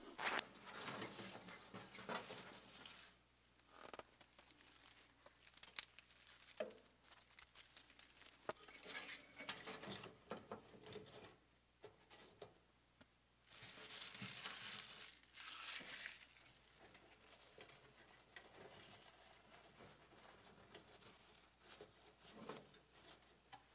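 Dry tinder and kindling rustling and crinkling as they are packed by hand into the firebox of a small sheet-metal wood stove, in uneven spells, with a single sharp click about six seconds in.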